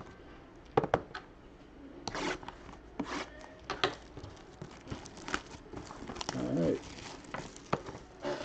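Trading-card packaging being opened and handled: wrapper crinkling and tearing, with scattered sharp clicks and taps.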